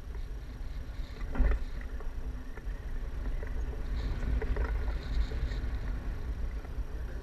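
Wind buffeting the microphone of a paraglider-mounted camera in flight: a steady low rumble, with one brief louder knock about a second and a half in.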